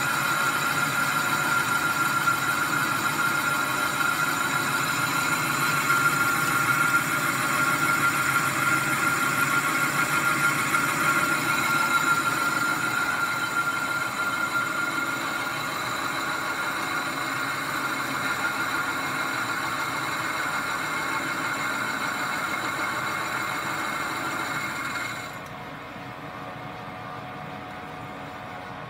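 Metal lathe boring out the inlet of a BMW N54 turbocharger compressor housing, the boring bar's cut giving a steady high-pitched squeal over the running lathe. About 25 seconds in the squeal fades and the sound drops to the quieter running of the lathe.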